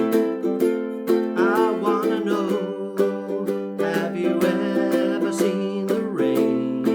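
Enya EUC-MAD ukulele with Aquila Lava strings and a low G, strummed in a steady rhythm of chords.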